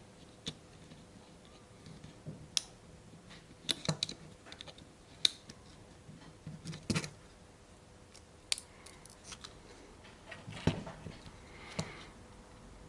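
Scattered light clicks and short scrapes of hard 3D-printed plastic parts being handled, worked and pressed together.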